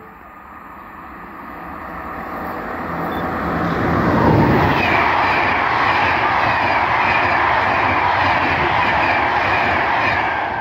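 SNCF BB 26000 electric locomotive hauling a rake of Corail coaches past at speed. The sound builds over about four seconds as the train nears, then holds as the coaches rush by on the rails, and eases off near the end.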